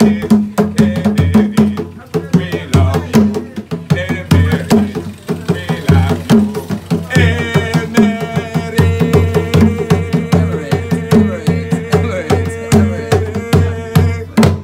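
Two kpanlogo hand drums played with bare hands in a fast, steady interlocking rhythm, with a man singing over them; in the second half he holds a long note.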